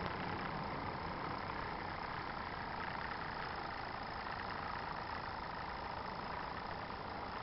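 Live-steam model traction engine running steadily as it drives along: a fast, even exhaust beat with a hiss of steam.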